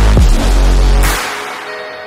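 Background music: an electronic track with heavy deep bass and kick hits that fall in pitch. The bass drops out about a second in, leaving a quieter held sound.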